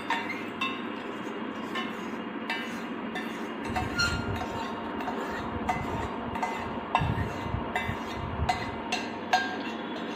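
A metal spoon scraping and tapping against the inside of a metal pan while melted crayon wax is poured out of it: frequent irregular clinks, some ringing briefly.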